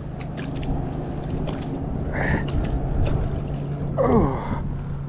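A man breathing hard and grunting with effort as he hauls a heavy magnet catch up out of a river, with short clicks from the rope and handling and a steady low hum underneath.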